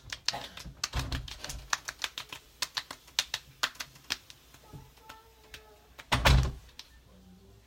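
Hands patting and tapping on the face: quick, irregular slaps of palms and fingertips on skin, pressing lotion in so it soaks deeper. A louder, longer burst a little after six seconds in.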